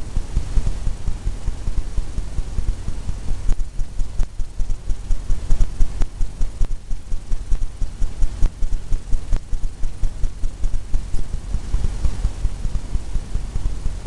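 Steady rhythmic dull thumping, about four to five beats a second, heavy and low.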